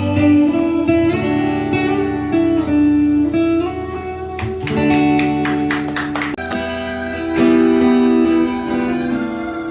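Guitar-led instrumental music with held chords and melody notes and no singing, broken by a quick run of sharp strummed attacks about five to six seconds in.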